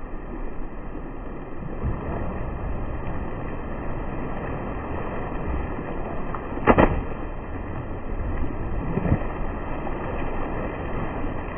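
Pool water splashing, dull and low with no bright top, as a man jumps and thrashes in the water. A sharp splash stands out about seven seconds in, and a smaller one comes near nine seconds.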